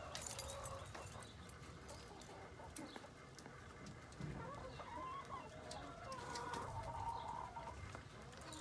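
Chickens clucking, with a few drawn-out, wavering calls in the second half.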